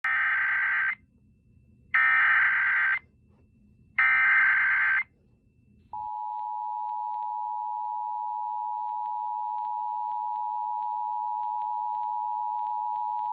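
Emergency Alert System start tones: three one-second bursts of harsh SAME header data, each a second apart. About a second after the last burst, the steady two-tone EAS attention signal (853 and 960 Hz) begins and holds.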